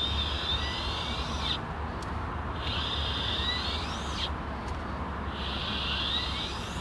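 A turning wheel squeaking in three long squeals, each about a second and a half, coming back roughly every two and a half seconds as the wheel goes round, over a steady low hum.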